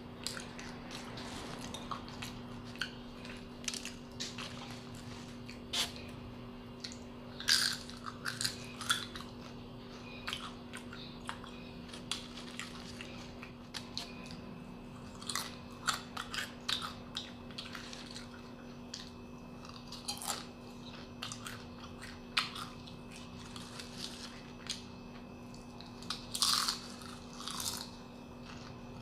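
Crisp fried banana chips being bitten and chewed close to the microphone: irregular crunches in clusters, loudest about a quarter of the way in and again near the end, over a steady low hum.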